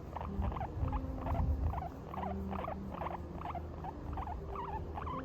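Guinea pig squeaking in a quick, steady series of short, bending squeaks, about three a second, over a low rumble.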